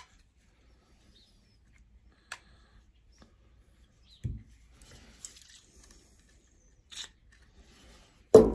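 Light clicks and a soft knock from a removed EGR valve being turned over and worked by hand, then a much louder knock near the end.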